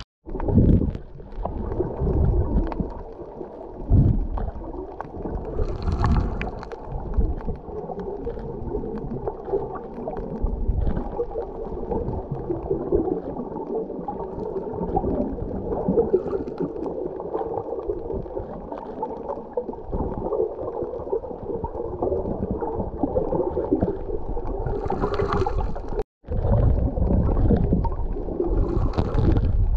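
Muffled underwater sound picked up by a camera held below the surface: a dense, murky rumble with gurgling water movement and occasional low thumps and bubbly hisses. The sound cuts out for a moment about 26 seconds in.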